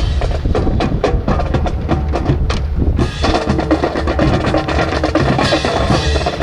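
Marching drum cadence with sharp, wood-block-like clicks, played to accompany a rifle drill. About halfway through, the drumming thickens into a fuller, denser roll.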